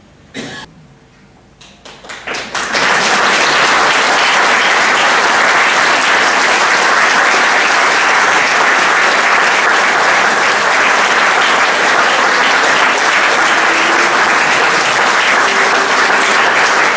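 Audience applauding: a few scattered claps about two seconds in, quickly swelling into full, steady applause.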